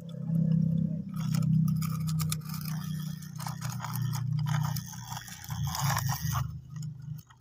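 Plastic toy cars scraping and clicking as they are handled and rolled onto a toy truck, over a low steady hum. The clicking stops near the end.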